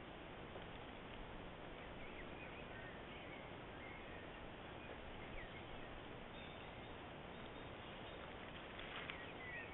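Faint woodland ambience picked up by a trail camera's microphone: a steady hiss with short, high bird chirps scattered through, and a brief rustle near the end.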